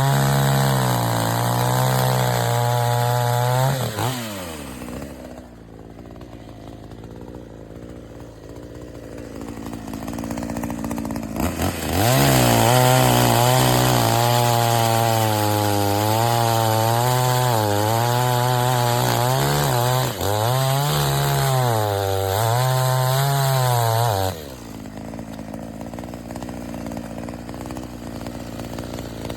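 BILT HARD 46cc two-stroke gas chainsaw running at full throttle through a big log, its engine pitch wavering as the chain bites. The throttle drops about four seconds in and the saw runs much quieter until it opens up again about twelve seconds in, then falls back to idle near the end.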